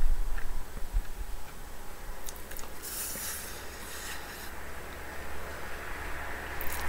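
Steady low rumble of highway traffic, with a few short scrapes and clicks of a fork on a plate.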